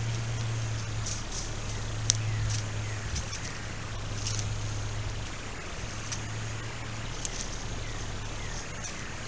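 Outdoor ambience through a trail camera: a steady low hum, with scattered sharp clicks and a few faint, short, falling chirps.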